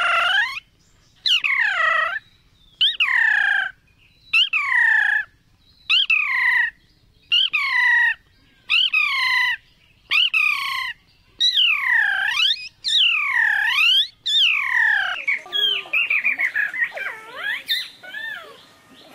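A man imitating a house sparrow's call with his mouth: a loud chirp that dips and rises in pitch, repeated about a dozen times just over a second apart. It changes to a quicker, wavering run of glides near the end.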